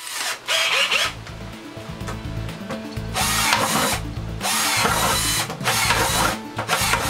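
Cordless drill with a 3/8-inch spade bit boring holes through the plastic bottom of a 5-gallon bucket. The motor runs in several bursts with short pauses between them, one for each hole.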